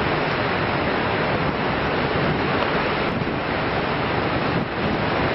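Steady rushing noise of wind blowing over the microphone on the open deck of a ferry under way, mixed with the rush of the sea alongside.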